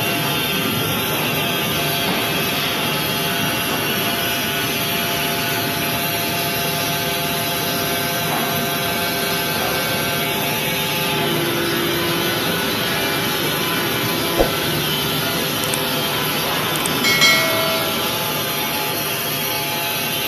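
Wood-Mizer industrial band sawmill running steadily, the band blade sawing through a log. There is a sharp knock about fourteen seconds in and a short louder clatter about three seconds later.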